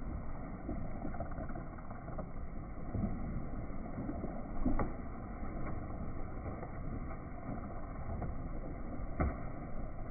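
Water gushing out of a large corrugated discharge pipe into a pond as a load of channel catfish is flushed out, a steady low rush. Two sharp knocks stand out, about five and nine seconds in.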